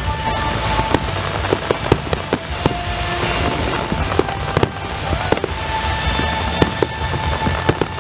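Fireworks display: a fast, irregular string of bangs and pops from bursting shells and low-fired comets over a continuous rumble and crackle, with music playing underneath.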